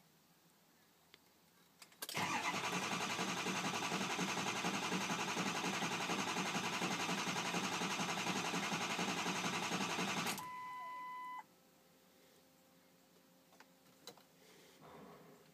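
Starter cranking a 2004 Ford 6.0 Powerstroke V8 turbodiesel for about eight seconds without the engine catching, a no-start, then cutting off suddenly. A steady electronic beep follows for about a second.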